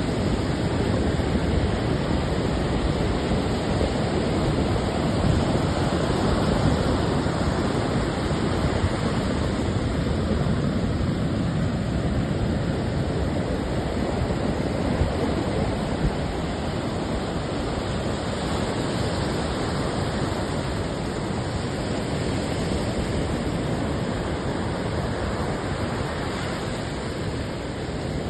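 Ocean surf washing on the shore in a steady, unbroken rush, slightly louder in the first third.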